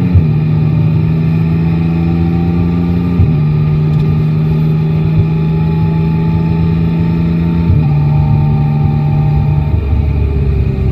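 Yamaha Tracer 9 GT's inline-three engine running at steady revs under way. Its note steps down in pitch three times: right at the start, about three seconds in, and near eight seconds. Near the end it turns to a lower, rougher note.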